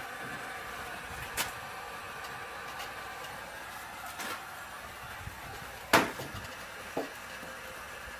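Handheld electric heat gun (Wagner) running steadily with a fan hum, while a few knocks sound as a wooden 2x4 and the plastic barrel are handled, the loudest about six seconds in.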